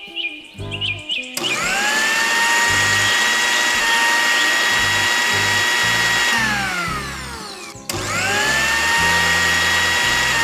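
Miniature electric mixer grinder's tiny motor whining as it grinds green chilies and spices into a paste. It spins up about a second and a half in and runs steadily, winds down with falling pitch around six to eight seconds in, then starts again at once.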